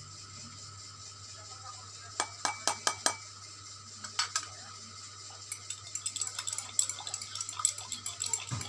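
A metal spoon clinking against the side of a container while stirring a liquid mixture, over a steady low hum. There are a few separate clinks about two seconds in, then quick, continuous clinking from a little past halfway.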